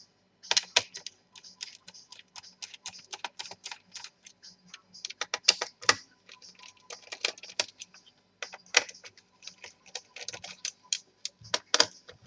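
A small screwdriver unscrewing the screws that hold a laptop's cooler, heard as a run of small, irregular clicks and ticks of metal and plastic.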